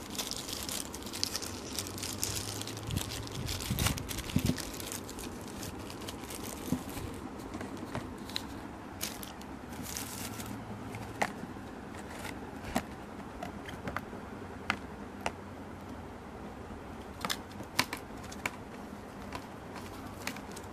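Thin plastic packaging bags crinkling and rustling as they are handled and opened, busiest in the first half. Scattered sharp clicks and taps of small plastic items being set down follow.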